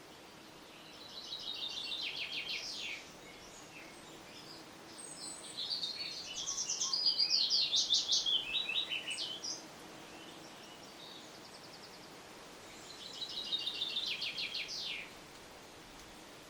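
A songbird singing three phrases of quick, trilled notes, each lasting two to four seconds with pauses between, over a steady faint background hiss.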